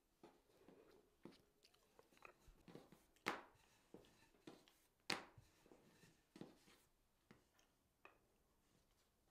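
Faint, irregular small clicks and snips of metal pastry tweezers pinching a ridged pattern into a piece of sweet dough, with two sharper clicks about three and five seconds in.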